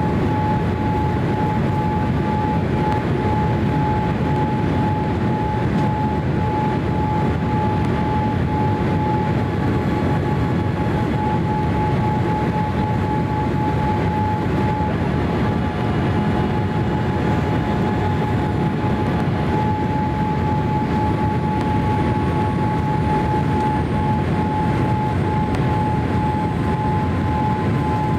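Cabin noise inside a Boeing 787-8 with Rolls-Royce Trent 1000 engines: a steady low rush of engines and airflow, with a thin steady whine over it.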